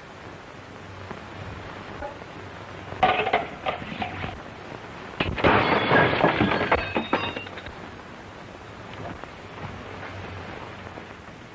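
A few sharp knocks, then a louder crash with clinking and ringing that lasts about two seconds, like glass breaking.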